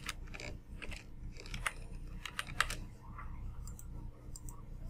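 Keystrokes on a computer keyboard and mouse clicks: several sharp clicks in the first three seconds, then a few fainter ones near the end, over a steady low hum.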